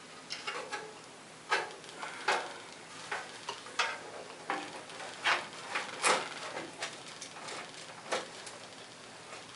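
Irregular clicks and light knocks as a computer power supply is handled and fitted into a metal PC case, about a dozen sharp taps scattered unevenly with short pauses between them.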